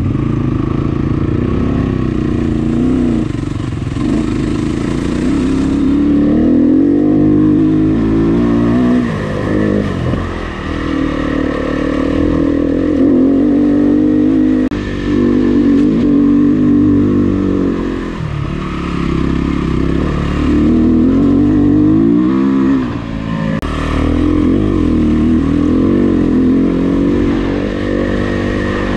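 Dirt bike engine being ridden along a trail, revving up and dropping back again and again as the throttle is opened and closed, with brief lulls where it backs off.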